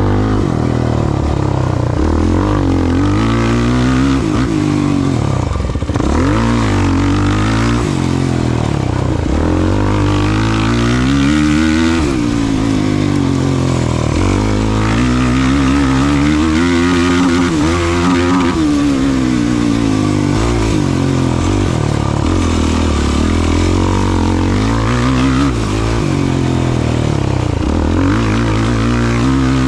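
Off-road race vehicle's engine, heard close up, revving hard and falling back over and over every one to three seconds as the throttle is worked and it shifts through its gears.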